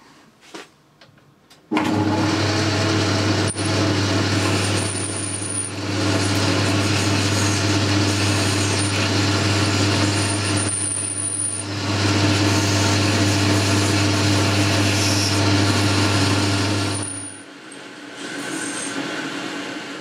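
Boxford lathe starting abruptly about two seconds in, then running steadily with a strong low hum while the tool turns the metal bar down. Near the end the sound drops to a quieter, steady running level.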